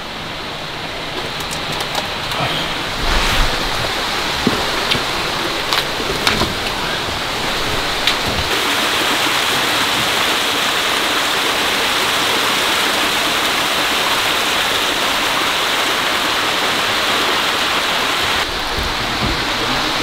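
Stream cascading down a rocky waterfall: a steady rushing of water that grows louder over the first few seconds, with a few light knocks in the first half.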